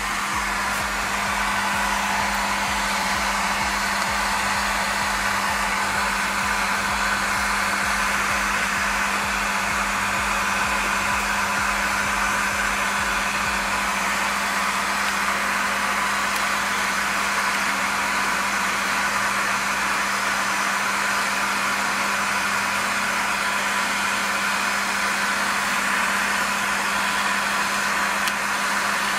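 Hair dryer running steadily: a constant rush of air with a low hum.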